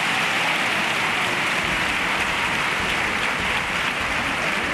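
Theatre audience applauding, a dense, steady clapping with no voices or music.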